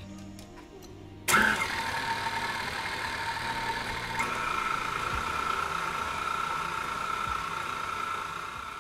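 KitchenAid Classic stand mixer switching on about a second in and running steadily, its wire whisk beating a thick toothpaste-and-glue slime in a glass bowl. About four seconds in, a steady whine in the motor noise comes through more strongly.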